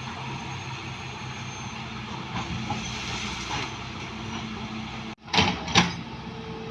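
Excavator's diesel engine running steadily under load. About five seconds in the sound cuts out abruptly, then come two loud short bangs about half a second apart.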